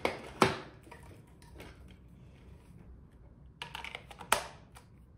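Plastic grooming-vacuum attachments and hose being handled and fitted together: a few sharp plastic clicks and knocks, one about half a second in and a short cluster near the end, with soft handling rustle between.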